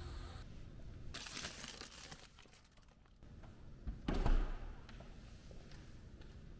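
Close-up handling noises: crinkling and rustling, like paper or plastic being handled, with a louder thud about four seconds in.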